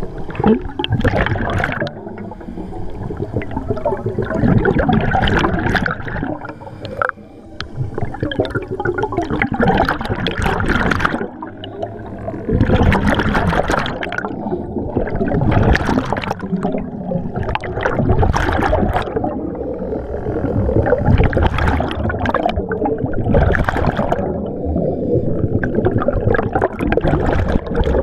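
Scuba divers' exhaled air bubbles gurgling and rushing past an underwater camera, in repeated bursts every two to three seconds.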